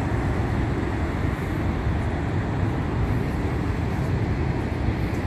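Niagara Falls' water rushing and pouring: a steady, dense rumble, heaviest in the low end, with no let-up.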